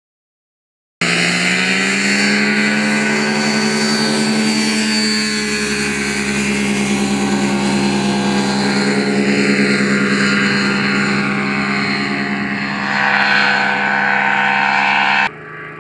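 Engine and propeller of an unmanned ultralight aircraft running steadily as it flies low and passes overhead. The drone starts suddenly about a second in and cuts off abruptly near the end.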